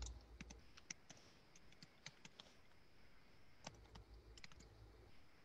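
Near silence with faint, irregular clicks from someone working a computer.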